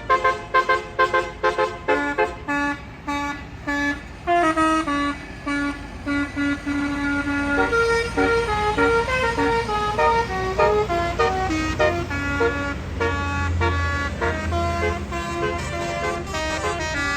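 Tour bus's Basuri telolet horn playing a tune: quick short notes at first, then longer held notes from about halfway. Under it runs a bus engine's low rumble that swells near the end.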